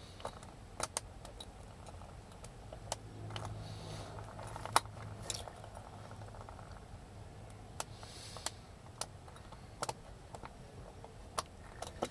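Scattered light metallic clicks and ticks of a pick and small parts on a Kwikset deadbolt's lock cylinder as the tailpiece nut is tightened down, with a faint low hum for a few seconds in the middle.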